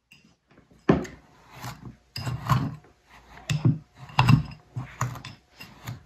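Wire pastry cutter chopping butter into sugar and flour in a small bowl: repeated scraping, clinking strokes of the blades against the bowl, a stroke every second or so starting about a second in.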